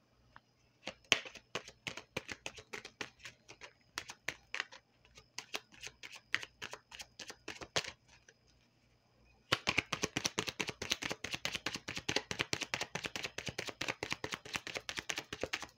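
A Kipper card deck being shuffled by hand: irregular card flicks and slaps for several seconds, then, after a short pause about nine seconds in, a faster, denser run of card flicks.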